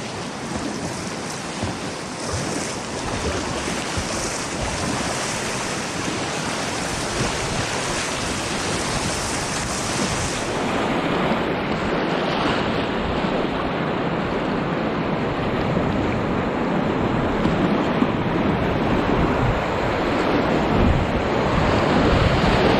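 Rushing whitewater of a river in high spate, heard up close from a kayak running the rapids, with wind noise on the microphone. The hiss loses its highest part about ten seconds in, and the rush grows gradually louder towards the end.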